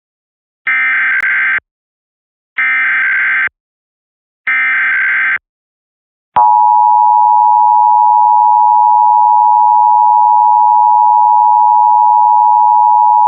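Emergency Alert System SAME header: three bursts of data tones, each about a second long, then the steady two-tone attention signal (853 and 960 Hz), which starts about six seconds in. Together they open an EAS required monthly test.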